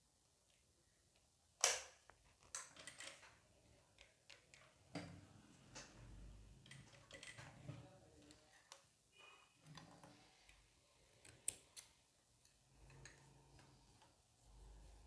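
Mostly quiet, with scattered clicks and faint rustling from hands working a Jack F4 industrial sewing machine and pulling fabric from under its presser foot. One sharp click comes nearly two seconds in, and a few fainter ones follow.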